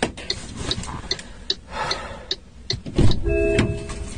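Car turn-signal relay ticking steadily, about two to three ticks a second, inside the car's cabin. About three seconds in comes a low thud, followed by a short electronic chime.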